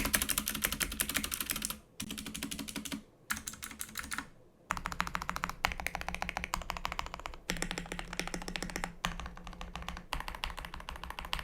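Fast typing on a custom KBD67 Lite mechanical keyboard with linear Durock Lavender switches and PBT keycaps: dense runs of keystrokes in bursts, with short pauses between them.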